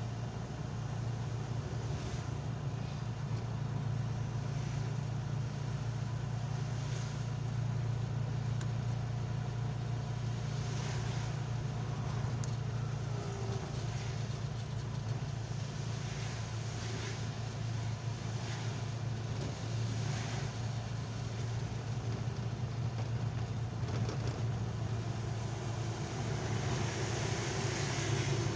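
Steady low drone of a vehicle's engine while driving on a wet road, under a hiss of tyres and spray; the hiss grows louder near the end.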